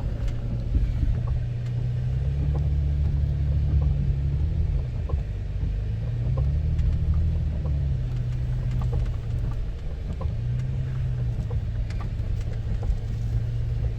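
SUV engine pulling a teardrop trailer through wet sand in two-wheel drive, revving up and dropping back about three times. It is struggling for traction, which is why four-wheel drive is needed.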